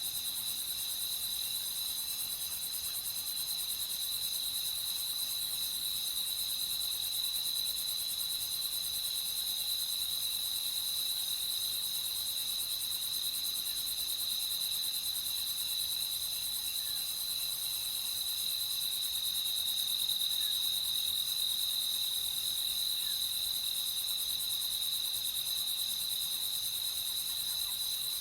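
Steady nighttime chorus of crickets trilling continuously at one high pitch, with a fainter, higher hiss of other insects behind it.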